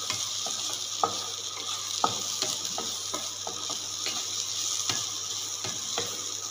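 Onions, tomatoes and spice masala sizzling in a non-stick kadai while a spatula stirs and scrapes through them, with irregular light knocks of the spatula against the pan.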